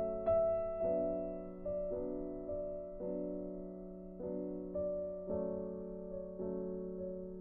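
Slow, gentle piano music: soft chords struck every second or so, each one fading away.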